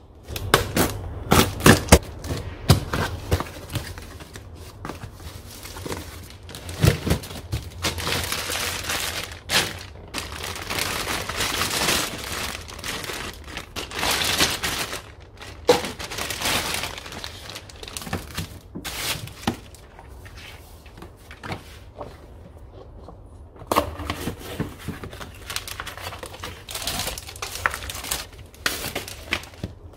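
Plastic packaging crinkling and rustling as products are unpacked by hand, with sharp taps and knocks of items being handled. A run of knocks comes in the first few seconds, and it goes quieter for a few seconds past the middle.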